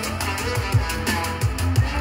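A song with bass and drums played back through a pair of Bose Companion 2 Series III desktop speakers, picked up by a microphone in front of each speaker.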